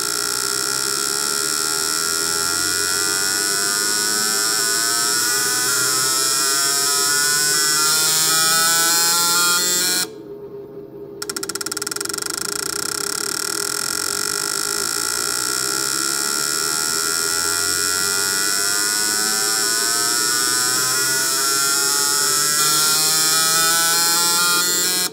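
Buell 1125 CR fuel injectors pulsing on an injector test bench, a buzzing whose pitch climbs steadily as the pulse rate rises, with a steady high hiss. It cuts out for about a second near the middle, then climbs again. The left injector is faulty: it does not open on small impulses and only starts working once the pulse rate is high.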